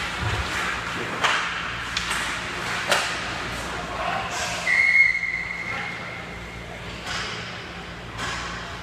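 Ice hockey play in a rink: sharp clacks of sticks and puck against sticks, skates and boards, then, about halfway through, a referee's whistle blowing one steady note for about a second and a half to stop play.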